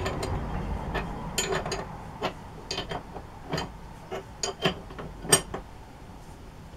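Irregular metallic clinks and taps of steel tools and parts being handled at the lathe, about a dozen, each ringing briefly, over a low rumble that fades during the first couple of seconds.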